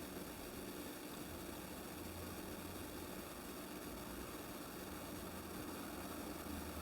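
Faint steady hiss with a low hum: room tone and the recording's noise floor, with no distinct sound events.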